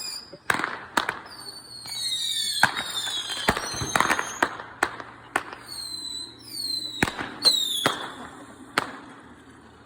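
Fireworks going off: a rapid run of sharp cracks and pops mixed with several high whistles, each falling in pitch, dying away near the end.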